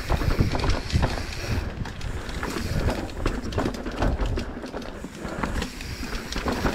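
Mountain bike rattling and clattering down a rough singletrack descent, with tyres rolling over dirt, roots and stones and a low rumble underneath, a dense run of small knocks.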